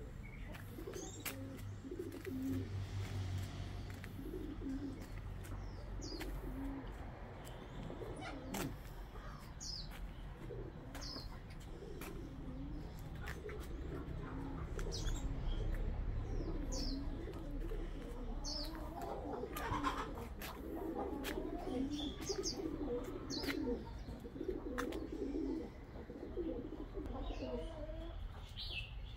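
Pigeons cooing over and over in short, low phrases, with brief high chirps from small birds now and then.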